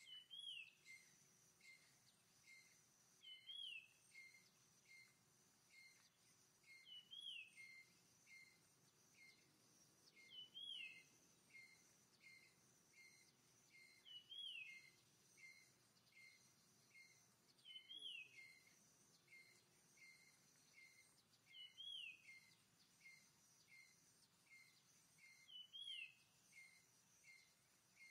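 Faint bird calls repeating steadily: short chirps about every half second to two-thirds of a second, with a longer falling whistle every three to four seconds. A faint steady high tone runs underneath.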